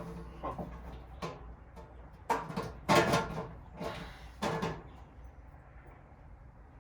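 Metal parts of a gas patio heater knocking and rattling as they are handled during assembly, with a handful of knocks between about two and five seconds in, the loudest around three seconds.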